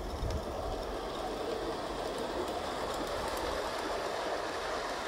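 Gas-fired 7/8th-scale Accucraft Decauville 0-4-0T live-steam locomotive and its coaches running on a garden railway track: a steady rolling noise with light clicks of the wheels on the rails.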